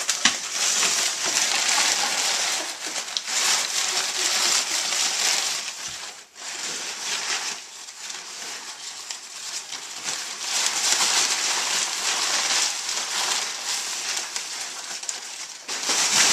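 Crumpled brown packing paper crinkling and rustling continuously as a pig roots and burrows through it with its snout, with a short lull about six seconds in.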